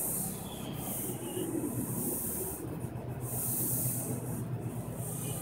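New York City subway work train, a service locomotive with a converted R-25 crew cab car, at the platform: a steady low rumble and hum, with high hissing that comes and goes in stretches of a second or so.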